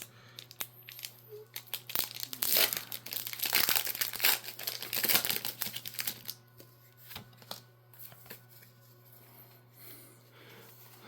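A foil Pokémon card booster pack wrapper crinkling and being torn open, busiest from about two to six seconds in, then quieter rustling and clicks of cards and wrapper being handled.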